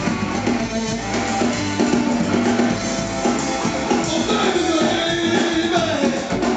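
Live blues band playing: electric guitar over electric bass and a drum kit, amplified through the stage PA.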